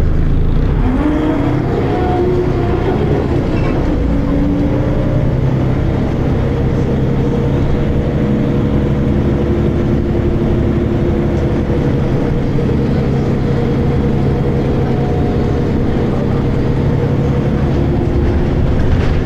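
Volvo B10BLE single-deck bus's diesel engine and ZF automatic gearbox heard from on board as the bus drives. Several tones rise in pitch over the first few seconds as it gathers speed, then hold fairly steady while it cruises.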